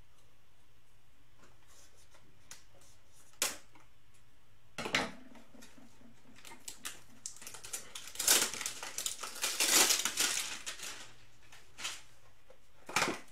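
Tearing and crinkling of cardboard and wrapper as a Panini Rookies and Stars trading-card hanger box is opened by hand. A couple of sharp clicks come first, then a few seconds of crackly tearing, and a last snap near the end.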